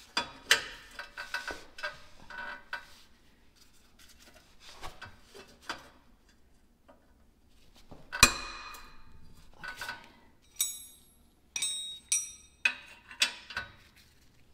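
Metal hand tools such as sockets and wrenches clinking and clanking, with scattered knocks and one loud ringing clank about eight seconds in.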